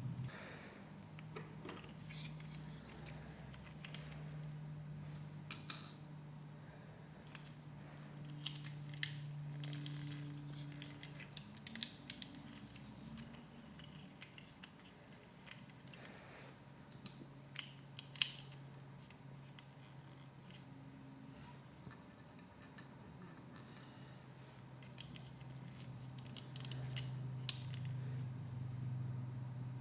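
Plastic Lego Technic pieces clicking and rattling as they are handled and pressed together, with a sharp click every few seconds and small clusters of clicks. A low steady hum lies underneath.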